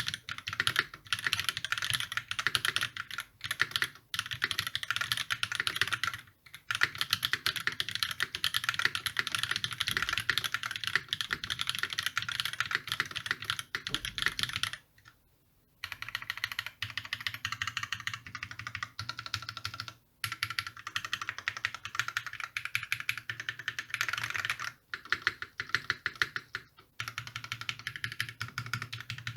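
Continuous fast typing on a custom E8.5 mechanical keyboard with a brass plate, lubed YOK Panda tactile switches and GMK Olivia keycaps: a dense stream of key clacks broken by a few short pauses, the longest about halfway through.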